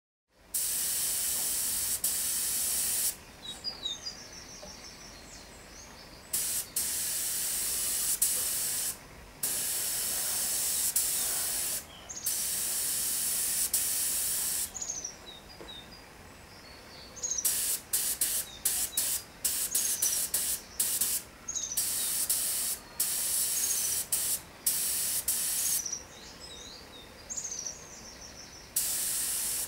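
Pressurised spray hissing in bursts of two to three seconds, then in quick short puffs from a little past halfway; birds chirp faintly in the pauses.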